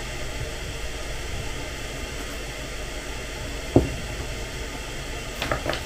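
Steady hiss of a stovetop kettle heating on the gas stove, not yet boiling. About four seconds in there is a single light knock, a mug or spoon touching the table.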